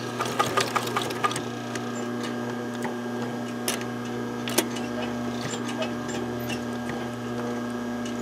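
Sewing machine humming steadily, with a few irregular clicks as the needle is walked slowly over the coil of a separating zipper. The clicks come in a quick cluster in the first second or so, then only now and then.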